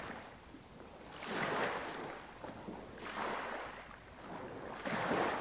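Sea waves washing against a rocky shore, the rushing noise swelling and falling away in surges every second or two.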